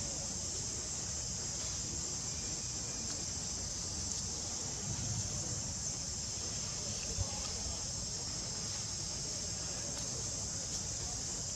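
Steady high-pitched insect chorus, a continuous drone of crickets or cicadas, over a low, even rumble.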